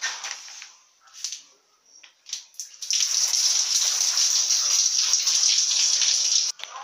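Shower water spraying steadily for about three and a half seconds, after a few short spurts, then cutting off suddenly near the end.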